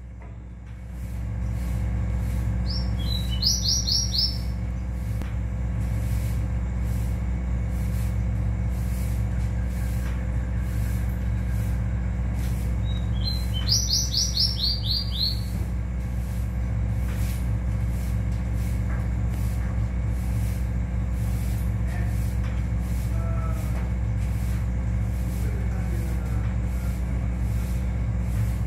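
Caged male rowti (ruddy-breasted seedeater) singing two short song phrases, each a quick run of about eight high notes, one about three seconds in and one around the middle. A steady low hum runs underneath.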